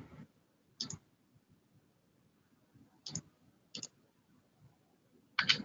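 Three faint, short clicks, about one, three and four seconds in, like a computer mouse being clicked, then a louder brief noise near the end.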